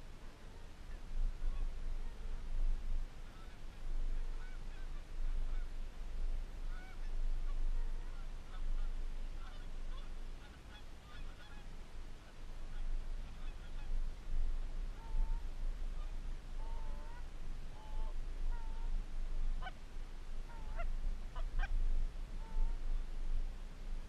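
Canada geese honking: many short calls, scattered at first and coming thicker and sharper towards the end, over a steady low rumble.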